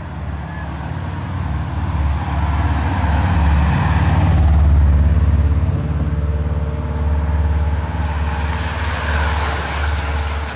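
Car engine and tyre noise from a moving car, a steady low rumble that swells about halfway through and then holds.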